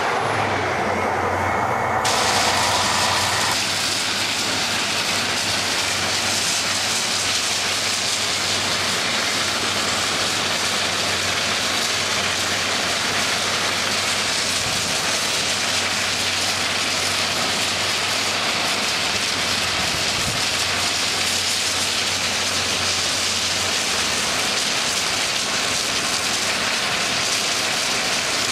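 An East Coast HST power car passing close by for the first couple of seconds. Then a steady, rain-like hiss of ballast stones pouring from a self-discharge train's conveyor onto the track bed, with a low steady diesel hum under it that stops about four seconds before the end.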